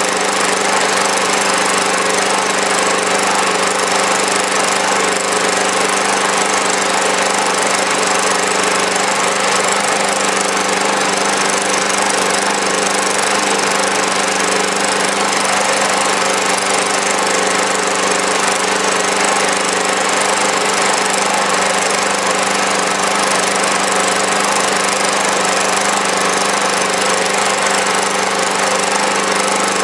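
Small engine running steadily under load at about 2,500 rpm, driving a generator, with an even, unchanging note.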